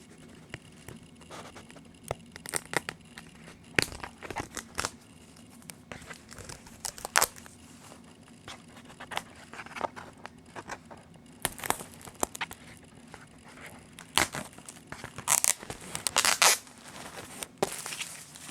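Plastic shrink wrap being torn and peeled off a CD package: irregular crinkling crackles and sharp tears, loudest about fifteen to seventeen seconds in.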